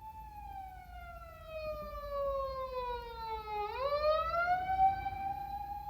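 Emergency vehicle siren wailing: one long tone that falls slowly in pitch for about three and a half seconds, then sweeps quickly back up and holds high.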